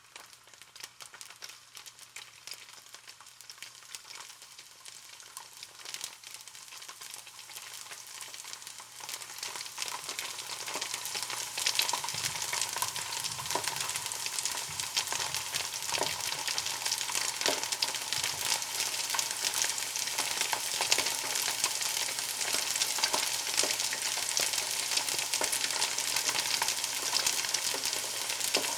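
Food frying in hot oil: a dense sizzle with constant fine crackling pops. It starts faint and builds steadily, growing clearly louder about twelve seconds in, then holds.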